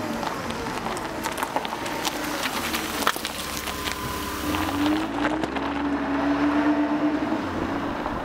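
A running engine-like sound with a low rumble and scattered clicks, its pitch rising about four and a half seconds in and then holding steady.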